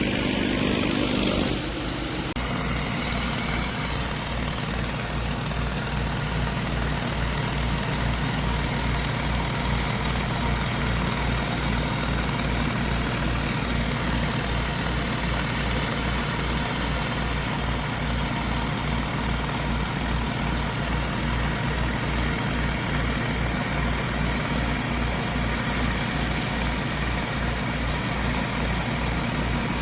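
An engine running steadily with an even low throb; the sound shifts slightly about two seconds in.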